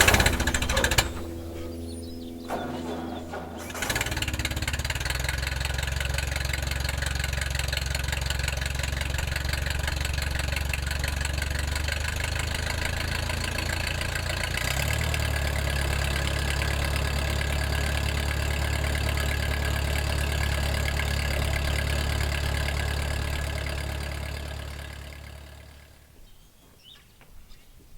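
Ford 8N tractor's four-cylinder engine starting about four seconds in and running steadily, its note shifting slightly about halfway through, then dying away near the end.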